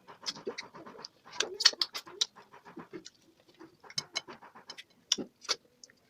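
Close-up eating sounds of a person chewing and swallowing eba with egusi and okra soup: many irregular wet smacks and clicks of lips and mouth.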